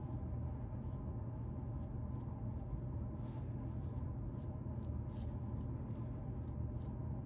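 Fingernails scratching through a beard close to the microphone: irregular short scratching strokes over a steady low rumble.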